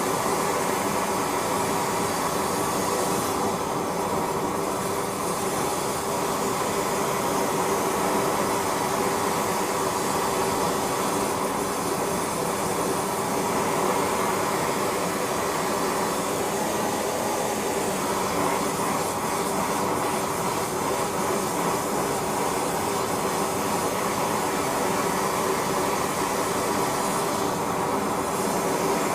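Steady, unbroken machine roar with a hum of steady tones running through it.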